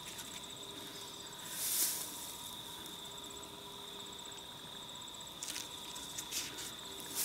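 Crickets or other insects trilling steadily, one high pulsing call among them, with brief rustling sounds about two seconds in and again near the end.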